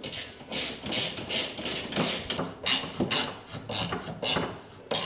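Hand tool worked against the metal shifter mount in quick repeated strokes, about two or three a second, each a short rasping click.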